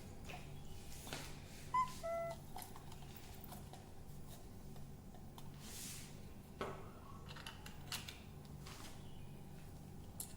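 Two short electronic beeps about two seconds in, the second slightly lower, over faint scattered clicks and knocks from the wires and switch-socket unit being handled and pushed into the wall box. A low steady hum underneath.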